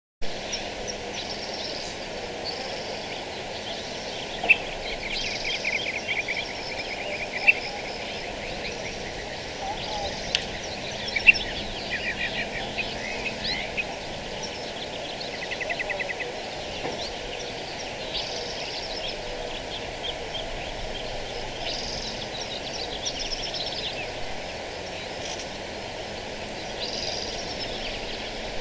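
Several small birds chirping and trilling: short high calls and rapid runs of repeated notes come and go throughout, with a few sharp louder chirps standing out, over steady outdoor background noise.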